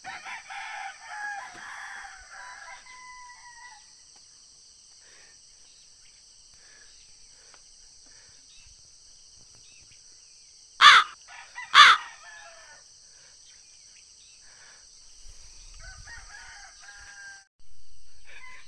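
Roosters crowing at dawn over a steady high buzz of insects that stops near the end. Two loud, short sharp sounds about a second apart come midway.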